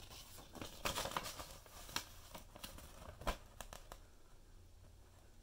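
Folded paper instruction leaflet rustling and crinkling as it is handled, in short scattered crackles with one sharper click a little past three seconds in. The rustling dies away after about four seconds.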